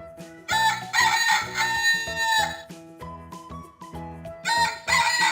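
Rooster crowing twice, each a long cock-a-doodle-doo, over children's background music.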